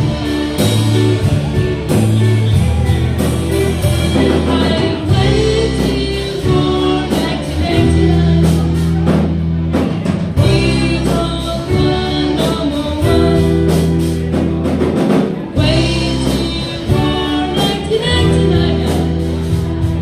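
Live rock band playing a song: electric guitars, bass guitar and drum kit, with a lead vocal over them.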